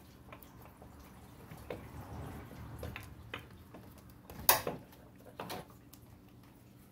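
An old water pump being worked loose and pulled out of a car engine's front cover by hand: metal parts clink and knock against the engine, with the sharpest knock about four and a half seconds in. Coolant drips and trickles from the opened pump housing.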